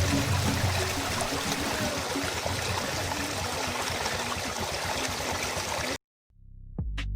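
Water of a waterfall rushing, a steady even noise, which cuts off abruptly about six seconds in. Near the end, sharp clicks and an electronic tone start.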